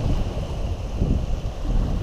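Wind buffeting the microphone in uneven gusts, over the wash of the sea.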